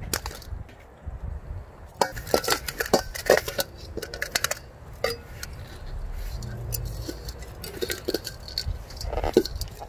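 Hand repotting with a metal trowel: potting soil scooped from a steel bowl and poured into a terracotta pot, with many sharp clinks and scrapes as the trowel knocks against the pot and bowl and grit patters down.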